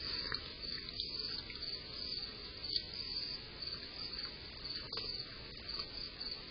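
Crickets chirping steadily in a rapid high pulsing, with a few faint clicks from the raccoon moving about.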